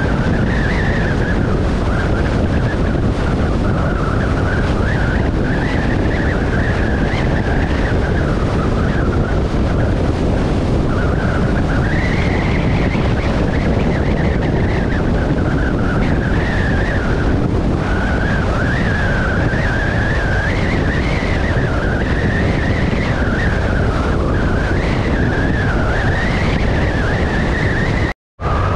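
Motorcycle riding at road speed: a steady rush of wind and road noise with a whining engine note that rises and falls with the throttle. The sound cuts out completely for a moment near the end.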